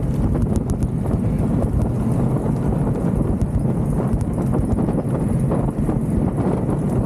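Wind buffeting the microphone of a handlebar-mounted action camera on a moving mountain bike, with steady rattling and knocking from the camera's loose mount.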